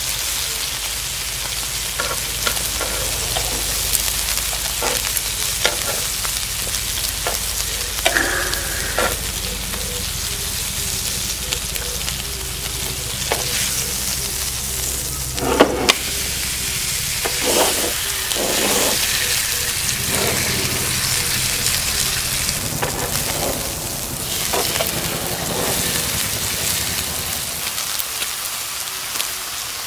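A thick bone-in dry-aged steak, onion slices and king oyster mushrooms sizzling steadily on a portable gas griddle, with metal tongs clicking and scraping against the pan as the meat is lifted and turned. A few louder clacks of the tongs come a little past halfway.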